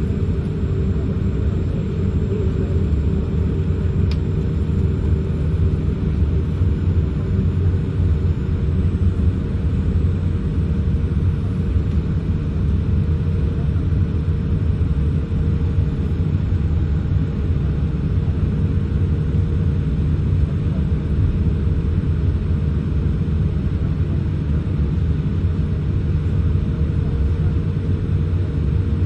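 Steady low rumble inside the cabin of a Boeing 787-8 taxiing on the ground, engines at idle, with a faint steady hum over it.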